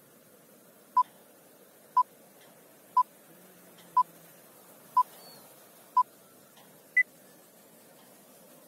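Film-leader countdown beeps: six short, identical beeps, one a second, then a seventh, higher-pitched beep about seven seconds in, over a faint hiss.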